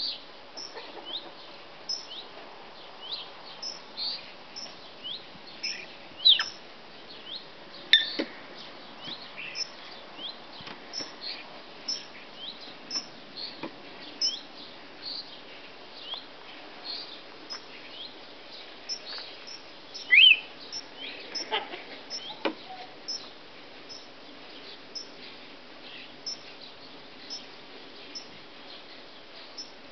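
African grey parrot giving a long run of short, high chirps and whistles, one or two a second, some sweeping downward, with a louder call about twenty seconds in.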